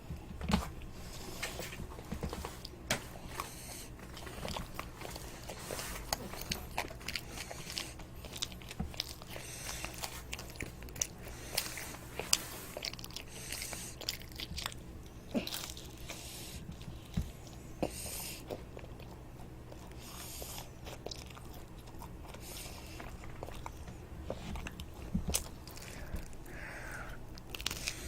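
A child biting and chewing toast close to the microphone: many short crisp crunches and mouth sounds, with a faint steady hum underneath.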